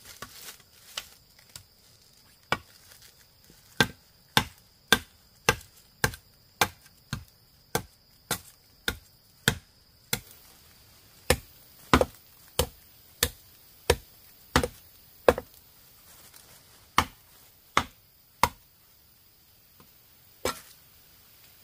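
Repeated chopping with a blade, sharp strokes at a steady pace of about two a second. There is a short pause about ten seconds in; the chopping then resumes and ends with a single stroke near the end.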